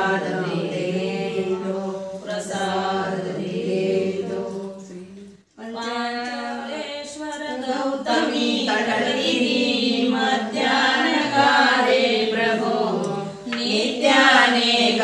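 Voices singing a devotional chant, unaccompanied, which breaks off sharply for a moment about five and a half seconds in and then carries on.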